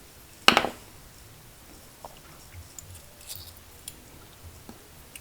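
Small clicks and taps of a metal pick against the pins and springs of an American Lock 1106 padlock being reassembled, with one louder sharp sound about half a second in and a few faint ticks after it.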